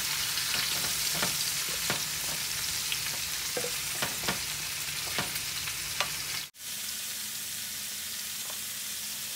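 Cauliflower, carrots and red bell pepper sizzling in a frying pan while stirred with a wooden spatula, with repeated knocks and scrapes of the spatula on the pan. After a brief break in the sound about two-thirds through, only steady sizzling.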